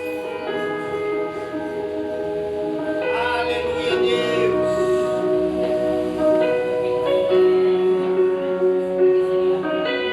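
Music: a slow song opening of long held notes that change every second or two.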